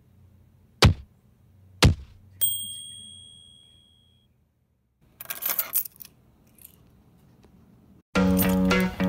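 Title-card sound effects: three thumps about a second apart, then a bell-like ding that rings out for a second or so. A short clatter follows a few seconds later, and music starts near the end.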